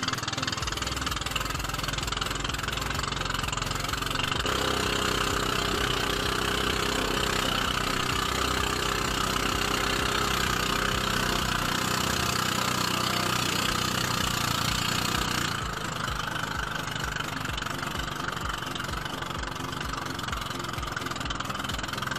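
Small engine of a motorized outrigger boat running steadily under way, with water rushing and splashing along the hull; the sound gets a little quieter about fifteen seconds in.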